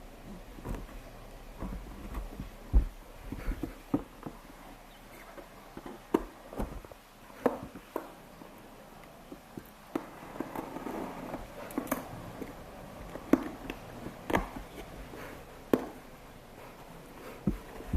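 Parcel being handled and opened by hand: irregular knocks, taps and clicks, with a stretch of rustling about two-thirds of the way through.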